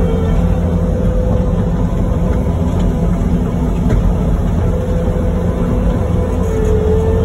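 Bobcat T590 compact track loader's diesel engine running steadily under load while its Brush Cat rotary mower cuts through overgrown brush. A steady hum sits over the low engine rumble.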